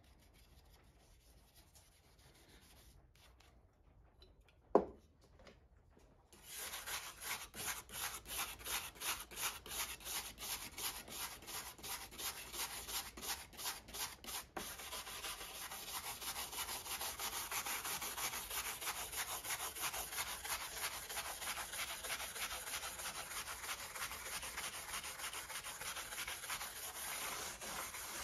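Hand sanding of a rusty steel crosscut saw blade with a sanding block: back-and-forth rubbing strokes, about two to three a second at first and faster and denser from about halfway on. A single sharp knock comes a few seconds before the sanding starts.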